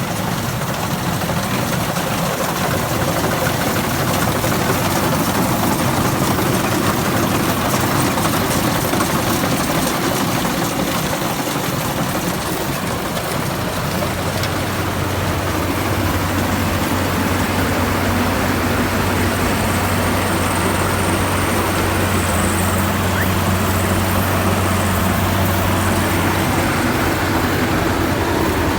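Combine harvester running steadily while harvesting rice, its engine and threshing machinery going together. A steady low hum from the engine becomes stronger about halfway through.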